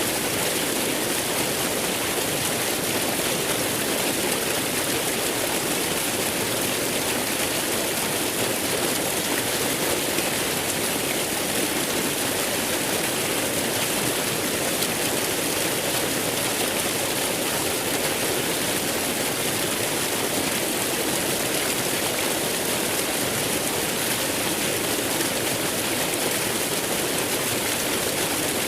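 Waterfall: falling water rushing steadily, an even hiss with no breaks.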